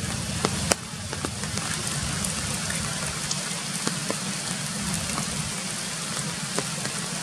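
Steady rain falling on tree foliage, with scattered sharp taps of drops striking leaves. A low rumble under the rain drops away less than a second in.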